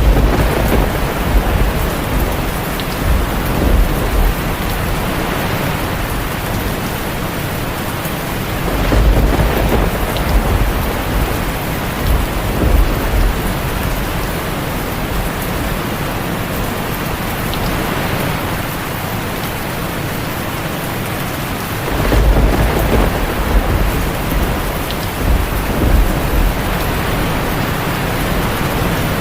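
Steady heavy rain, with thunder rumbling low three times: at the start, about nine seconds in, and about twenty-two seconds in.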